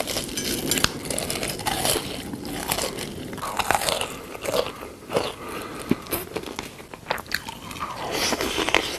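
Close-up sounds of a person eating crunchy food: irregular crisp crunches and bites with chewing between them.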